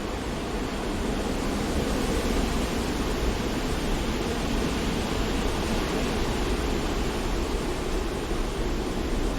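Steady, even rushing noise of a white-noise sleep track, heavier in the low and lower-middle range, with a slight rise in loudness about two seconds in.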